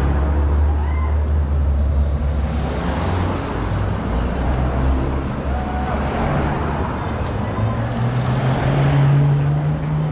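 Race convoy cars, team support cars among them, driving past one after another: engines running and tyres on the road, with a deep engine hum early on and another car's engine note growing near the end.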